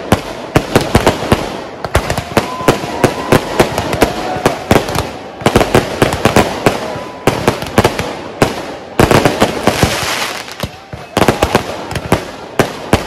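Aerial fireworks bursting overhead in rapid, irregular bangs, often several a second, over a continuous hiss from the barrage.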